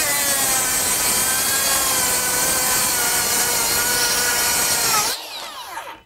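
Makita 40V XGT rear-handle 7-1/4-inch brushless circular saw ripping at full depth through a stack of five 1/2-inch OSB sheets, its motor whine steady under the load of the cut. About five seconds in the blade clears the wood, the pitch rises briefly, and then it falls quickly as the saw's electric brake stops the blade.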